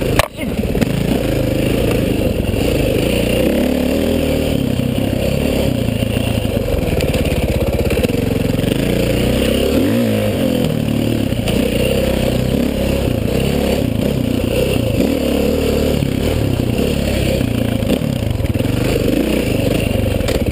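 KTM 530 single-cylinder four-stroke dirt bike engine running under constantly changing throttle, its pitch rising and falling as it is ridden along tight wooded single-track. There is a brief dropout just after the start.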